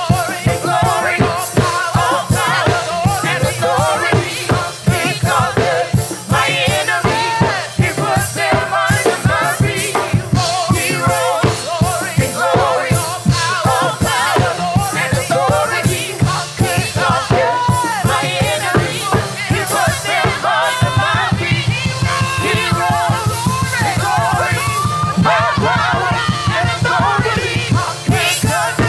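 Live gospel praise-and-worship music: a band playing a steady, driving beat under a group of singers.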